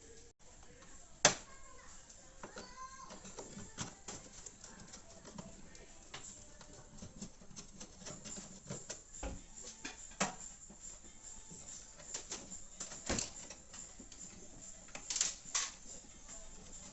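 Scattered clicks and light knocks of a screwdriver and plastic parts as the screws of a fridge's freezer-door frame are loosened, with one sharp, louder click about a second in and a quick cluster of clicks near the end.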